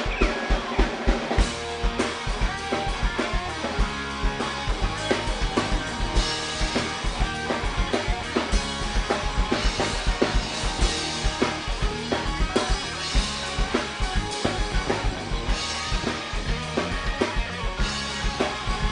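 Live band playing an instrumental song intro: a drum kit with bass drum and snare keeping a steady beat under sustained pitched instruments, with cymbal washes every few seconds.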